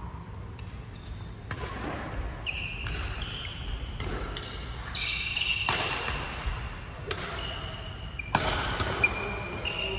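Badminton rally: rackets striking a shuttlecock in a string of sharp hits, mixed with short high squeaks of court shoes on the hall floor, ringing in a large hall.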